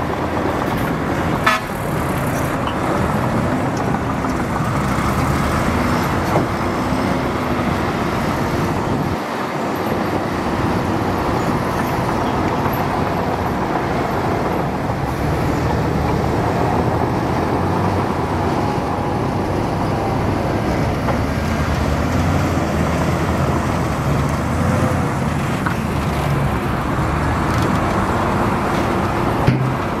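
Komatsu crawler bulldozer's diesel engine running under load as it pushes dirt, its revs rising and falling, with a few short sharp knocks, the loudest about a second and a half in.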